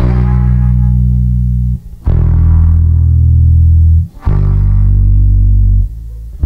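Instrumental passage of a rock song: bass and guitar holding three low notes or chords of about two seconds each, with short breaks between them.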